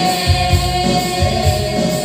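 Women singing a worship song into microphones, holding one long note over instrumental backing with a steady beat.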